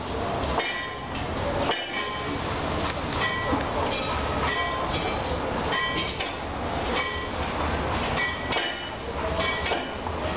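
Irregular metallic clanks, about one or two a second, each ringing briefly, over a steady low rumble.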